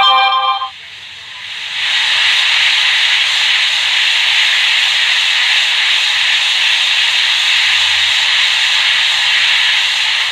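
Hot-air rework station blowing a steady hiss onto a freshly placed iPhone 6 Tristar charging chip, reflowing its solder. The hiss drops away about a second in and comes back strongly just under a second later.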